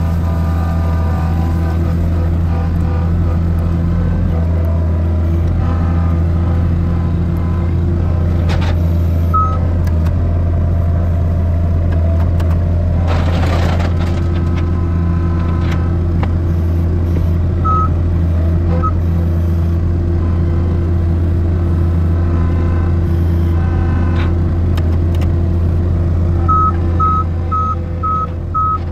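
Avant 528 compact loader's diesel engine running steadily as it carries a pallet of beehives, with a brief hiss about halfway through. Near the end a reversing alarm starts beeping, about three beeps a second.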